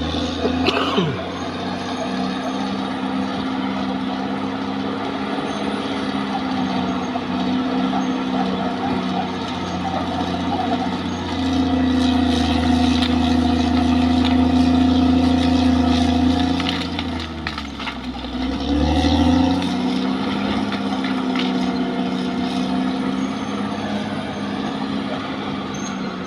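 Caterpillar D6R XL bulldozer's diesel engine working with a steady drone. It grows louder for several seconds about halfway through, then briefly falls away and revs back up a little after two-thirds of the way in.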